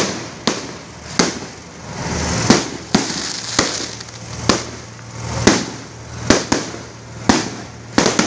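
Aerial fireworks going off in quick succession: about a dozen sharp bangs, irregularly spaced half a second to a second apart, with a hiss swelling up between some of them.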